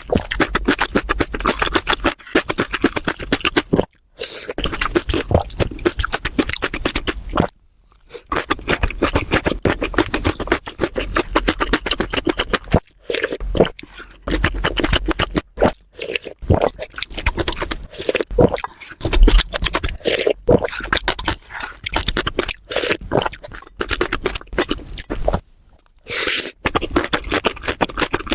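Close-miked eating: wet crunchy chewing and mouth sounds in quick, dense clicks, broken by a few short silent gaps.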